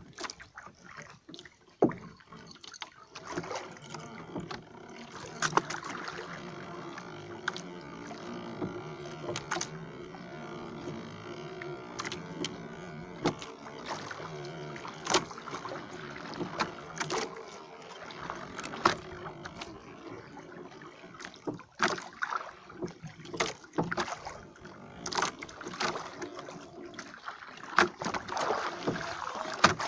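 Oars worked in a small wooden boat: a knock with each stroke, about one every two seconds, with water sounds and a steady background hum underneath.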